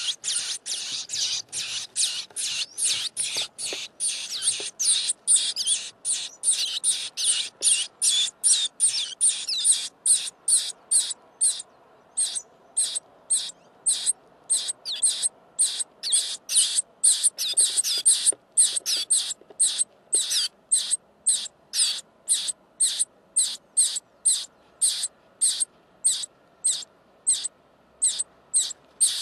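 Nestling birds begging: repeated high-pitched calls, packed closely for the first ten seconds or so, then spaced out at about two a second.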